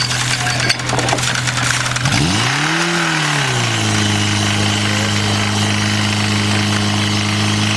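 Portable fire pump's engine running. About two seconds in its pitch swings up and back down as it is throttled, then it settles into a steady run.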